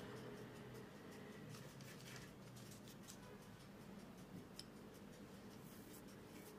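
Faint crunching and a few light clicks of chopped hazelnuts as a chocolate cookie dough ball is rolled in them by hand, mostly in the first couple of seconds, with one sharper click later.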